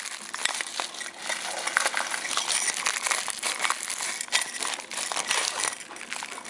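Plastic bubble-wrap bag crinkling and crackling as it is handled and pulled open by hand.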